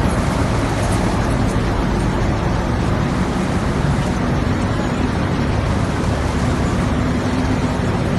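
Sawdust briquette-making machinery running steadily: a dense, continuous mechanical noise with a low hum underneath.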